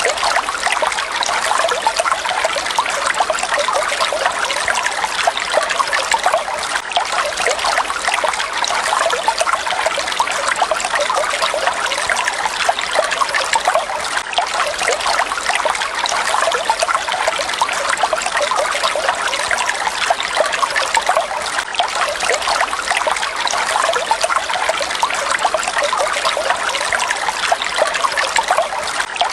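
Water falling and splashing in a steady, even rush with a bright, trickling texture.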